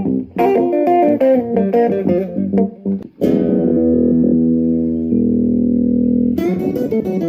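Acoustic guitar played through a Behringer UO300 octave pedal, which adds a bass octave under the notes. A run of plucked notes is followed, about three seconds in, by a held chord left ringing. Busy picking starts again near the end.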